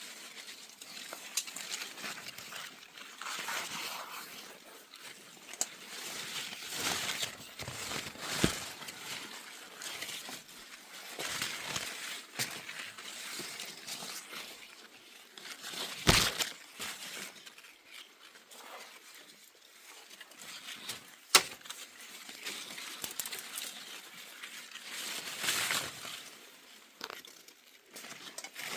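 Irregular rustling and crackling of leaves and twigs, with two sharp snaps, one about halfway through and a louder one some five seconds later.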